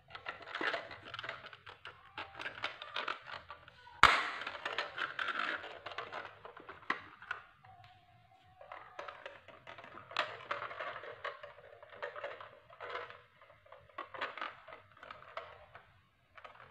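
Plastic toy truck being handled: rustling, scraping and small clicks of the plastic parts against hands and cloth, with one sharp click about four seconds in as the trailer snaps onto the tractor cab.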